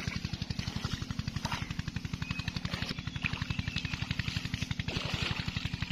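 Irrigation pump engine running steadily with a rapid, even beat of about ten pulses a second.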